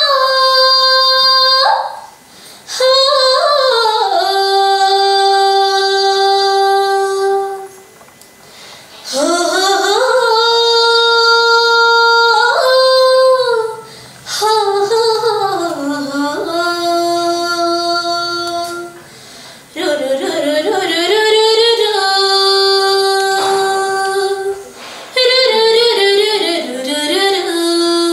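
A woman singing a Sambalpuri folk song solo, in several phrases that glide into long held notes, with short breaths between them.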